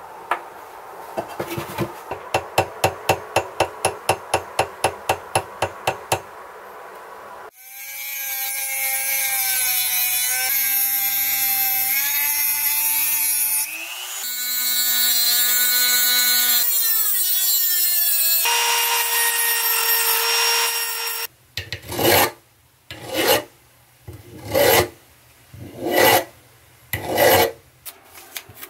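Rapid light taps, about four a second, for several seconds; then a Dremel rotary tool with a cut-off wheel whining as it cuts steel pins off flush with a wooden screwdriver handle. The whine shifts in pitch under load in two runs, with a steadier run after. Near the end come about five long rasping strokes, about one every second and a half, as the pin ends are smoothed by hand.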